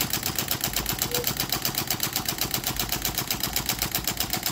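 Homemade solar Stirling engine built from a soda can, running on sunlight concentrated by a dish reflector and belted to a small generator: its moving parts knock in a rapid, even clatter of about ten beats a second.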